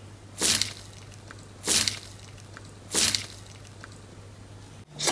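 Slime being squished three times, each a short wet squish about a second and a quarter apart.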